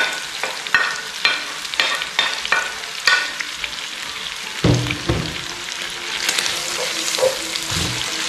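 A wooden spatula taps and scrapes pieces of boiled pork stomach and kidney off a ceramic plate into a hot frying pan, in a run of quick ringing taps over the first three seconds. A couple of dull thumps follow, then the meat sizzles in the oil as it is stirred, the sizzle growing louder near the end.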